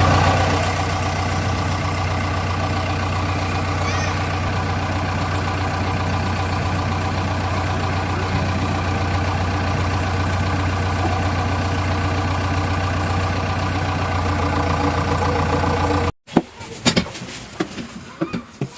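Large diesel engine idling steadily with a low, even hum. It cuts off suddenly about sixteen seconds in, and a few sharp clicks and knocks follow.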